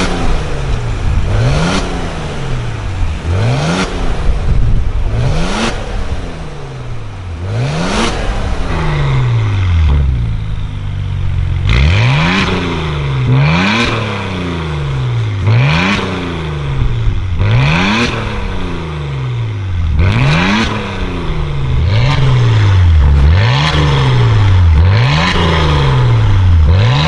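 Maserati Levante SQ4's twin-turbo V6 free-revved over and over through an IPE catback exhaust with its valves open. Each blip climbs sharply and falls back, repeating about every two seconds.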